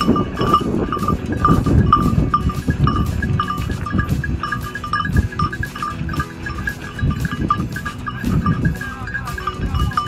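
Bell on a hunting dog's collar jingling in short, rapid rings in time with its trot, over a low rumble on the microphone.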